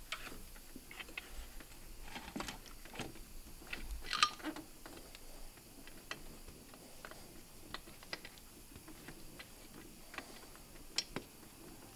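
Scattered, irregular metallic clicks and knocks of tools and parts being handled while an alternator is fitted to a car engine, with a louder ringing clink about four seconds in.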